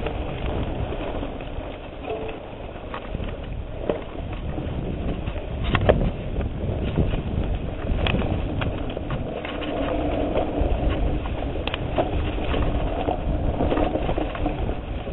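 Mountain bike riding a dirt singletrack: a steady rumble of tyres and wind on the microphone, with frequent rattles, clicks and sharper knocks from the bike over bumps.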